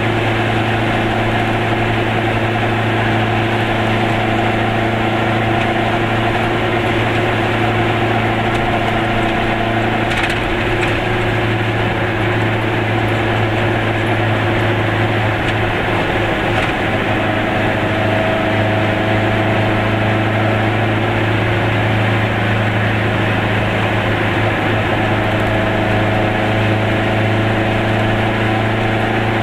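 Goggomobil's two-cylinder two-stroke engine droning steadily at cruising speed, with tyre and wind noise, heard from inside the small car's cabin.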